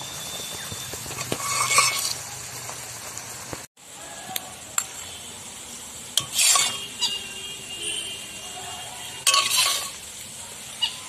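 Steel ladle scraping and scooping thick hog-plum (amra) chutney in a metal wok and spooning it into a glass bowl, with three louder scrapes and a few sharp clinks over a low steady hiss.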